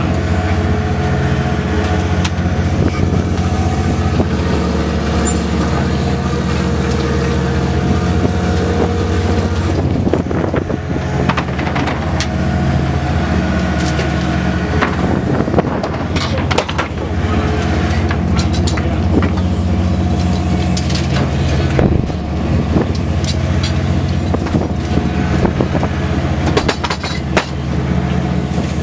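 Boat engine running steadily, with scattered clanks and knocks from about ten seconds in.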